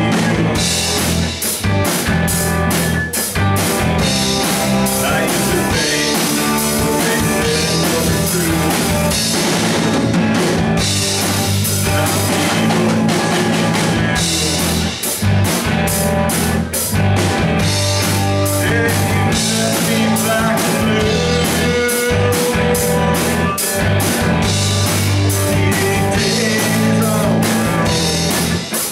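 Rock band playing live: electric guitars over a driving drum kit beat.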